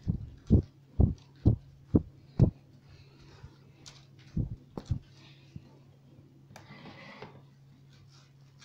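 A series of dull, low thumps, about two a second for the first two and a half seconds, then three more between four and a half and five seconds, over a steady low hum.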